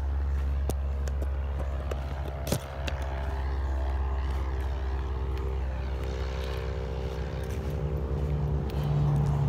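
Steady low engine drone with a few knocks, the sharpest about two and a half seconds in.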